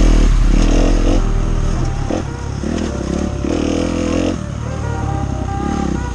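Dirt bike engine revving up and down over and over, its pitch climbing and dropping back as it is ridden along a rough forest trail.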